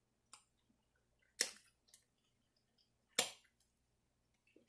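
Eating sounds: four short, sharp smacks or clicks while food is being eaten, the loudest about a second and a half in and again about three seconds in.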